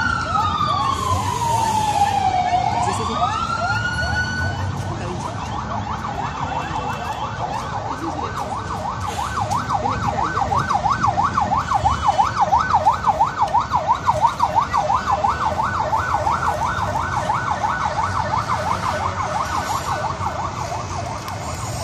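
Electronic emergency-vehicle siren: a slow wail that falls and rises again, then about four seconds in switches to a fast yelp warbling steadily up and down, over a low rumble of engines.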